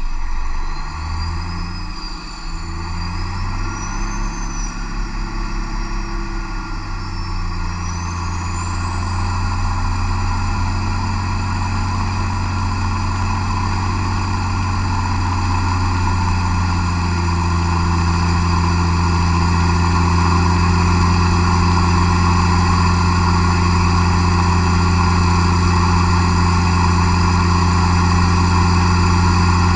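MAN D2876 LF05 turbocharged inline six-cylinder diesel running on an engine dynamometer, loaded up from light load to near full power. For the first several seconds its pitch wavers while a thin high whistle wanders and rises. It then settles into a steady, heavy drone that grows louder in steps as the load builds.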